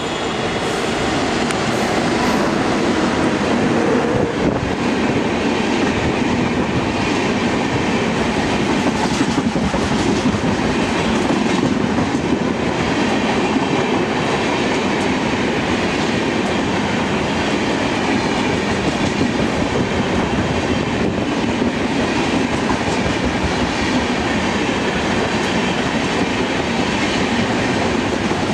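Rajdhani Express passing at speed behind a WAP-7 electric locomotive. The steady rush of wheels on rail grows louder over the first few seconds as the locomotive reaches and passes, then holds steady as the long rake of coaches runs by.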